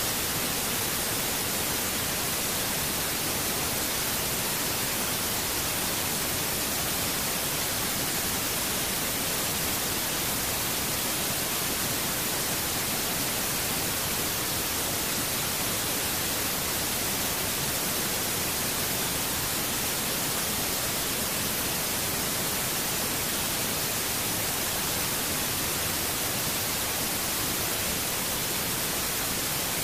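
Steady, even hiss of cabin noise inside an E-3 Sentry aircraft in flight, unchanging throughout.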